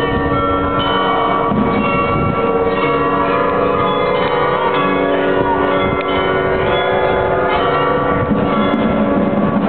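The Munich Rathaus-Glockenspiel, a mechanical carillon of tuned bells, playing its tune. Successive struck bell notes ring on and overlap one another.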